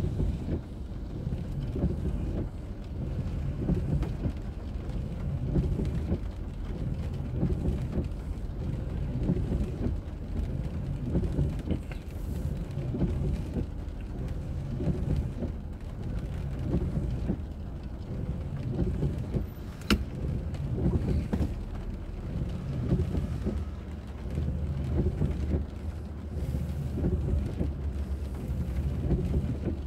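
Low, steady rumble of a car driving, engine and tyre noise picked up by a dashboard recorder inside the car. A single sharp click comes about two-thirds of the way through.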